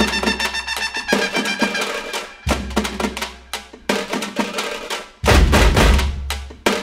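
Background music with a drum and percussion beat; a heavy bass comes in about five seconds in.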